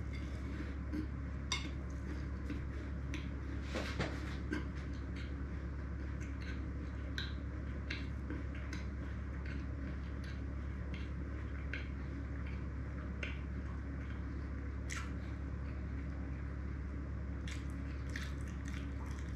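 Close-up eating sounds: a person chewing, with scattered small wet mouth clicks, over a steady low hum.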